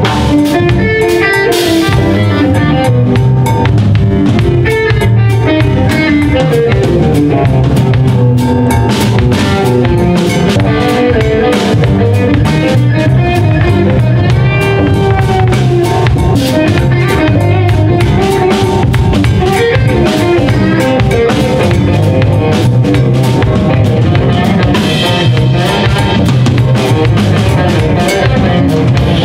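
Live band playing an instrumental passage with no singing: electric guitar over drum kit, bass and stage piano.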